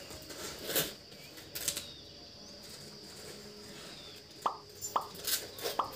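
Packing tape on a small cardboard parcel being slit and scraped open by hand: a couple of scratchy strokes, then a quick cluster of sharp scrapes and short tearing squeaks near the end.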